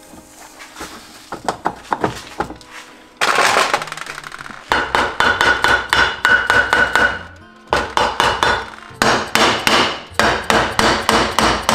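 Hammer tapping rapidly on a Simson engine's crankcase, driving the two case halves together over the crankshaft and gearbox. Light clicks come first, then two long runs of sharp strikes at several a second, with a ringing tone through the first run.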